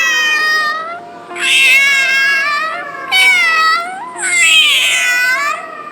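Domestic cat meowing: four long, drawn-out meows in a row, each falling in pitch toward its end.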